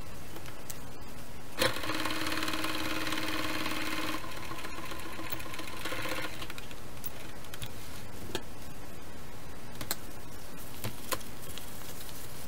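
Brother home sewing machine stitching through layers of vinyl: a click, then the motor and needle running steadily for about five seconds before stopping. A few sharp clicks follow.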